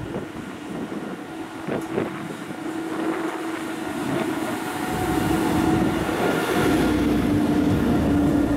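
DB class 245 diesel locomotive pulling a train out of the station, its engines giving a steady drone. The drone grows louder as it comes up and passes close by from about five seconds in.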